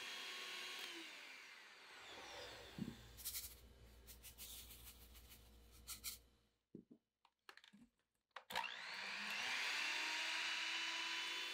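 Electric hand mixer beating egg whites in a glass bowl winds down and stops. A few seconds of light clicking and rattling follow, then a near-silent pause. A click about eight and a half seconds in sets the mixer running again, its whine rising quickly to a steady speed.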